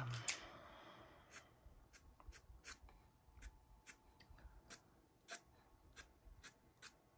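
Pastel pencil drawing grass blades on Pastelmat card in quick, short strokes: faint scratching, about two to three strokes a second.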